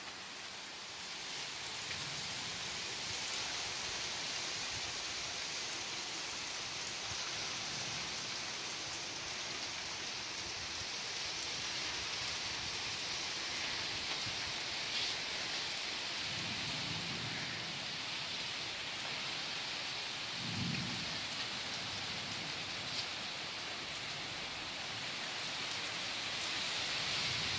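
Heavy rain pouring steadily onto paving and leafy shrubs, a dense, even hiss.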